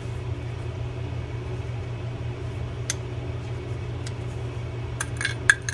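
Small metallic clicks of a Shimano Calcutta 700 reel's spool and frame being fitted together by hand: a single click about three seconds in and a quick cluster of clicks near the end. A steady low hum runs underneath.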